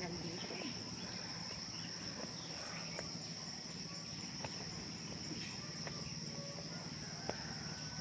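Insects droning steadily at one high pitch, with a few faint ticks.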